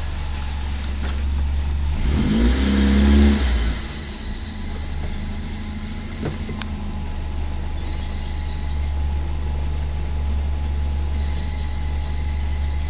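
1996 Fiat Uno EP engine idling, revved briefly about two seconds in, the pitch rising and then falling back to idle, with a couple of sharp ticks. The owner has an engine noise he cannot identify.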